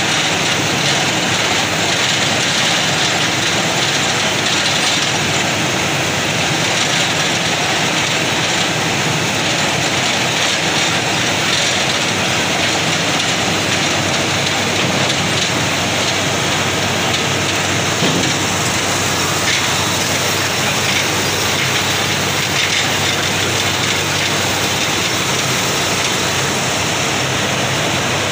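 Borewell drilling rig working, a steady loud mechanical noise.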